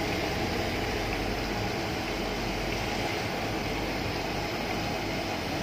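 Hot oil sizzling steadily as battered banana pieces deep-fry in a wide wok, with a low steady rumble underneath.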